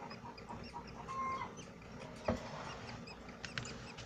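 Budgerigars chattering: many quick, high chirps and squeaks, with a short whistle about a second in. There is one sharp knock a little past halfway.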